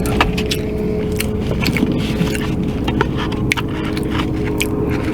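Close-up chewing of a small cheeseburger, with frequent short, sharp clicks and soft crunches from the mouth. A car's running engine hums steadily underneath.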